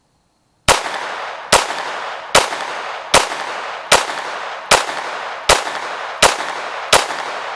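Glock pistol with an Advantage Arms .22 LR conversion kit firing CCI AR Tactical rounds: nine sharp shots at a steady pace, about 0.8 seconds apart, each with a short ringing tail. The even spacing shows each round feeding and cycling with no stoppage.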